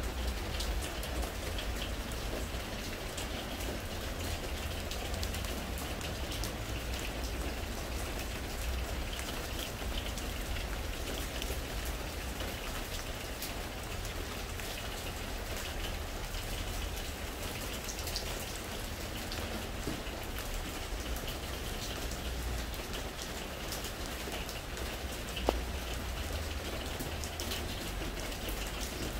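Steady spring rain falling on a pressure-treated wooden deck: a dense, even patter of drops, with one sharper tap near the end.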